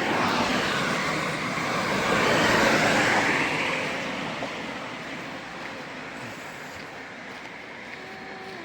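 A road vehicle driving past: engine and tyre noise swells to a peak about three seconds in, then fades slowly as it moves away.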